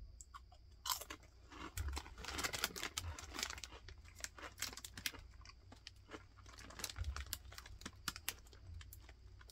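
A person biting into and chewing a Cajun Cheddar Cheeto. A sharp crunch comes about a second in, then dense crunching for a few seconds, then slower, fainter chewing clicks.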